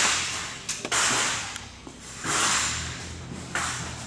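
Short bursts of air hissing, about one a second, each starting sharply and dying away within about a second.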